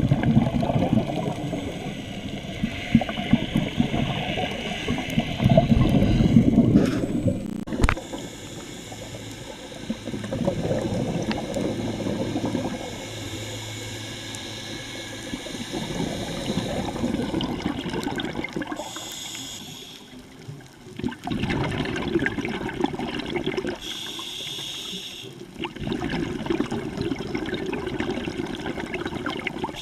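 Underwater bubbling and gurgling from scuba divers' exhaled air, coming in bursts every few seconds with short quieter gaps in between.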